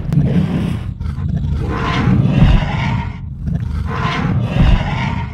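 Dinosaur roar sound effect of a Google 3D augmented-reality Ankylosaurus: two long, rough, growling roars, the second about two seconds after the first.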